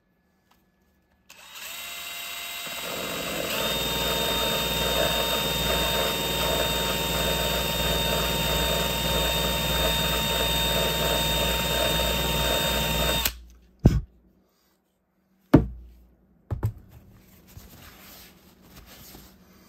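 Electric drill spinning a Dremel grinding-stone bit against a crosslinked-polyethylene fuel tank, grinding a puncture out into a V. It starts about a second in, rises in speed shortly after, runs steadily and stops suddenly about two-thirds through, followed by a few short knocks and faint rubbing of a paper towel.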